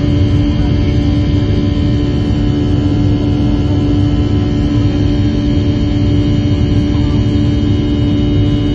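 Airliner's turbofan engine heard from inside the cabin over the wing: a loud, steady drone with a strong low hum and deep rumble, unchanging throughout.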